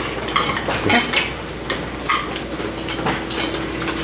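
Table utensils and dishes clinking and knocking, a string of light sharp clinks at a hot-pot meal, over a steady low hum.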